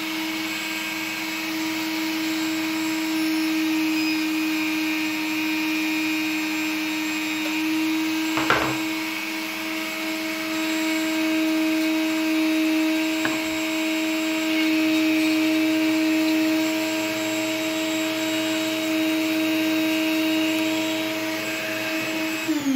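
Handheld rotary tool running steadily at high speed with a lock pin spinning in its collet as wafers are cut from it, with two short sharp clicks about a third of the way in and a little past halfway. Near the end the motor is switched off and its pitch falls as it winds down.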